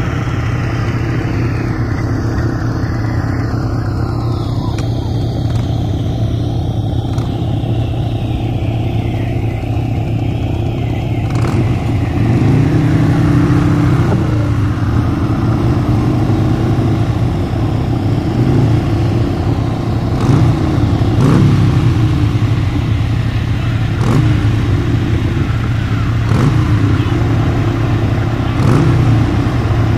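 Quad bike (ATV) engines running at idle with a steady hum; from about twelve seconds in, an engine revs up and down again and again.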